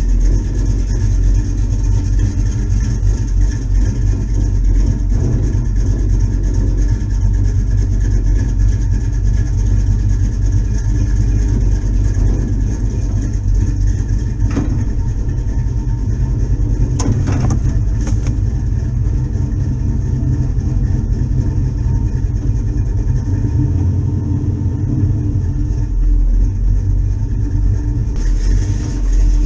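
A vehicle's engine running steadily with a heavy low rumble, with a couple of brief knocks about two thirds of the way through.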